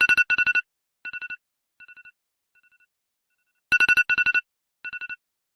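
iPhone alarm tone: quick groups of rapid, high electronic beeps, each group fainter than the one before. The pattern starts over at full loudness a little under four seconds in.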